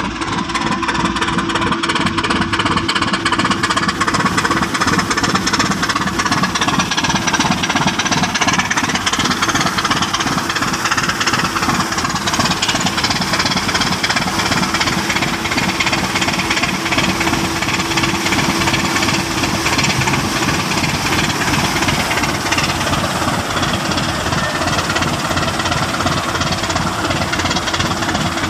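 A ship's diesel engine running steadily with a rapid, even knock.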